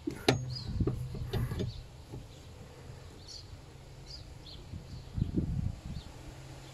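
A cranked metal bar being turned to tighten the spare wheel carrier's bolt through the car's boot floor: a sharp metal click just after the start, then knocks and scraping as it is wound down, again near the end. Birds chirp faintly throughout.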